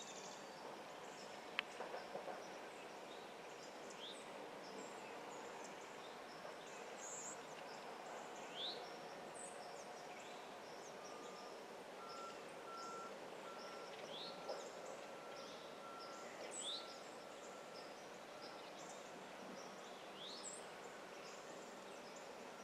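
Quiet woodland ambience: a steady faint hiss with short bird chirps scattered throughout, and a faint held tone for several seconds in the middle.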